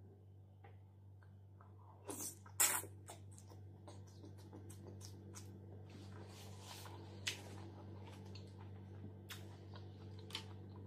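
Close-miked mouth sounds of a person eating lettuce salad: biting and chewing the crisp, dressed leaves with wet clicks and smacks. The sharpest bites come about two seconds in, then lighter chewing clicks continue.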